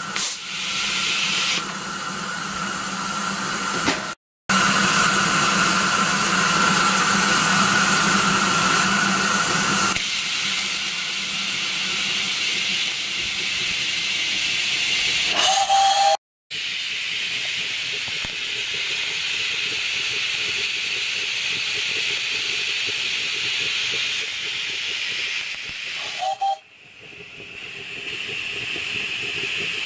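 Steam hissing from a miniature live-steam locomotive. Its safety valves blow off with a loud, slightly pitched hiss until about ten seconds in. After that the softer, steady hiss of the steam blower on minimum and the gas burner carries on, broken briefly twice.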